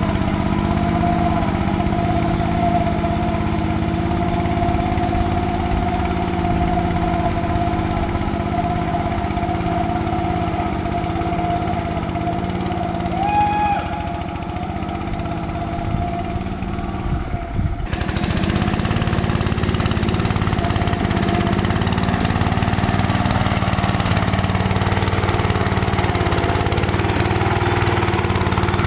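Riding lawn mower engine running steadily as the mud mower is driven, with an abrupt change in the sound about eighteen seconds in.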